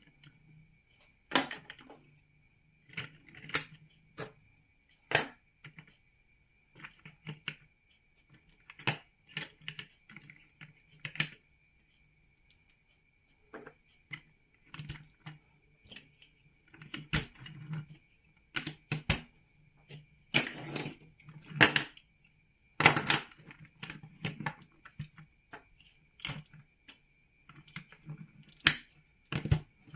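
Plastic toy building bricks being handled and pressed together: irregular sharp clicks, snaps and short rattles, with a brief pause about halfway through. A faint steady hum and a thin high whine lie underneath.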